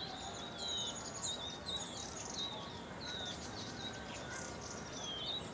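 Several songbirds chirping, with short high notes and quick down-slurred whistles overlapping one another, over a steady background hiss.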